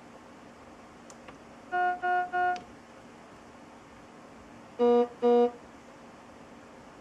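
Hospital patient monitor alarm tones: three short, evenly spaced beeps, then about two and a half seconds later two short beeps at a lower pitch.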